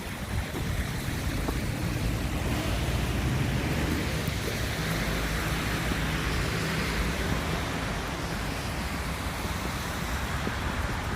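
A vehicle passing on a wet, slushy street: tyre hiss that swells over a few seconds and fades again, over a steady low rumble of wind on the microphone.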